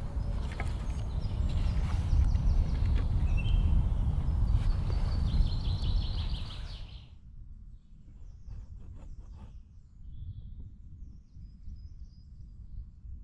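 A steady low rumble with the knocks of wooden sticks laid on leaf litter, and woodland birds chirping, one in a quick repeated trill. The rumble cuts off suddenly about seven seconds in, leaving faint birdsong and rustling.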